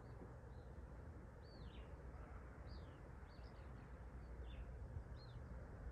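Small birds chirping: short, high, down-slurred calls about one or two a second, over a faint low rumble.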